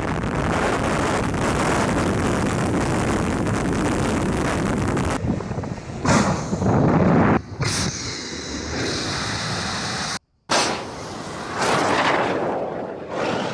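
Rushing blast of a water rocket trike's high-pressure water jet, mixed with wind noise on its onboard cameras. The sound changes abruptly several times and drops out briefly about ten seconds in.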